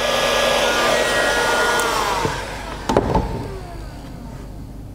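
Heat gun blowing hot air onto low-temperature solder heat-shrink connectors to melt the solder and shrink the sleeves. The steady blowing sound holds for about two and a half seconds, then fades gradually, with a sharp click about three seconds in.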